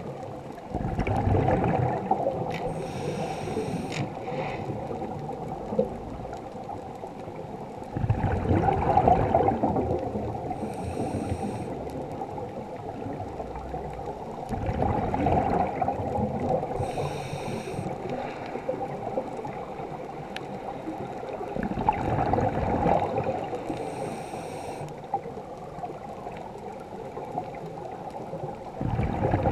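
Scuba diver breathing through a regulator underwater. Exhaled bubbles gurgle for about two seconds, then the regulator gives a short hiss on the inhale, and the cycle repeats about every seven seconds.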